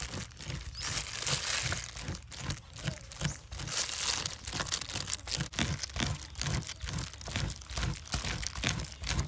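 Metal spoon scraping raw fish flesh off the skin on a wooden cutting board in quick, irregular strokes, with the crinkle of a plastic glove.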